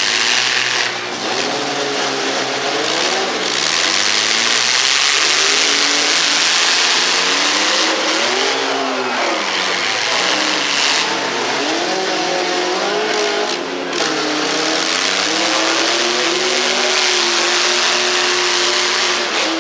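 Engines of several demolition derby mini pickup trucks revving up and down as they push and ram each other, loud and continuous, with more than one engine pitch rising and falling at once.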